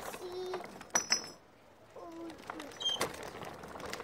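Two sharp clinks about a second in, with a brief high ringing, as of a glass bottle being knocked; short voice sounds come before and after.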